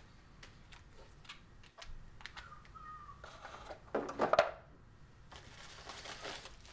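Light handling noises of unpacking: a few faint clicks and rustles as a laptop AC adapter and its cord are moved and set down on the table, with one louder brief rustle and knock about four seconds in.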